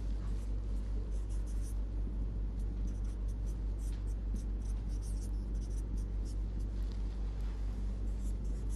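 Marker pen writing on a whiteboard: a string of short, high, scratchy strokes as the letters are drawn, over a steady low hum.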